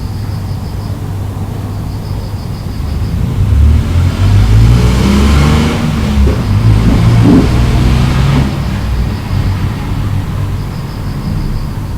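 A motor vehicle passing, its engine sound swelling about four seconds in and fading by about nine seconds, with the engine pitch rising and falling, over a steady low hum.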